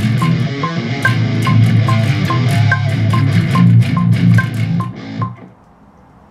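Electric bass guitar played fingerstyle along with a drum beat that has an even tick. The bass is fitted with new, inexpensive Chinese strings. The playing stops about five seconds in.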